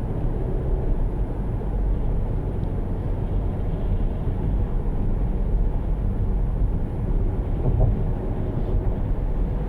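Steady low rumble of a vehicle in motion, running evenly without any change.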